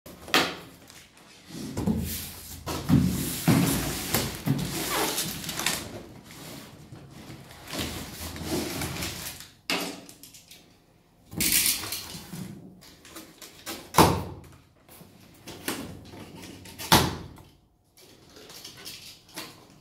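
Large cardboard carton being handled, with rustling and scraping of cardboard and plastic strapping bands, and sharp snaps as the bands are cut through, the two loudest in the second half.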